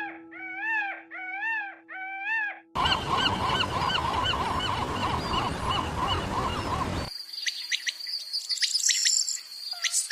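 Geese honking: first one goose calling about five times in a steady rhythm, then a whole flock honking at once. About seven seconds in, the sound cuts to small birds chirping.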